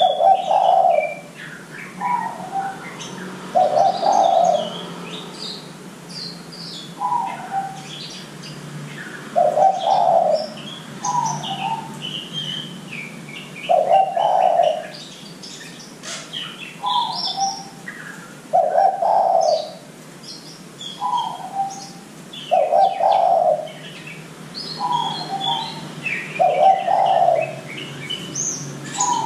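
Spotted dove (derkuku) cooing over and over, alternating a short higher coo with a longer, louder lower one about every two seconds. Small birds chirp and twitter in the background.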